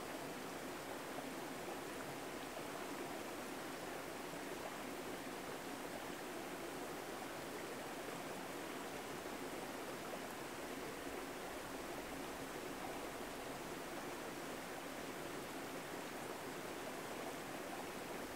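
Steady outdoor background noise, an even rush with no distinct events.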